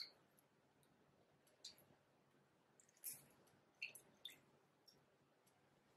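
Faint, near-silent squeezing of a halved lemon by hand over a glass measuring cup: a few scattered small wet clicks and squishes from the fruit.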